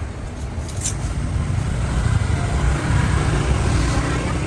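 Steady low rumble of street traffic, growing louder about two seconds in.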